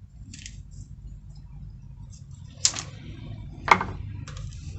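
A few sharp knocks and clicks of tools and a wooden chair leg being handled on a workbench, the loudest knock a little past the middle, over a steady low hum.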